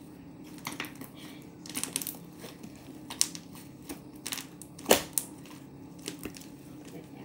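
Scattered small clicks and crackles, irregularly spaced, with one louder snap about five seconds in.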